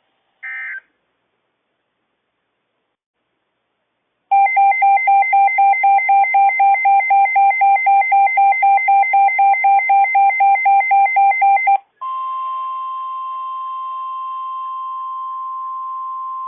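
Emergency alert broadcast tones: a short burst of data tones just after the start, then a few seconds of silence, then a loud pulsing alarm beeping about four times a second for about seven seconds. This is followed by a steady single tone of about 1050 Hz, the NOAA Weather Radio warning alarm tone that comes before a warning.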